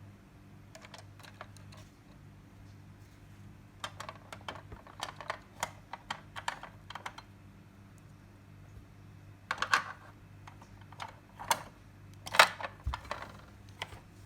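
Small plastic toy parts being handled: irregular clicks and taps, a few louder ones in the second half.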